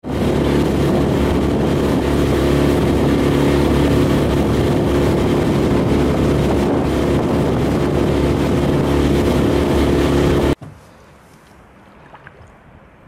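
Outboard motor running at speed, driving an aluminum skiff across open water: a steady engine drone under a broad rush of wind and water. It stops abruptly about ten seconds in, leaving quiet with a few faint small sounds.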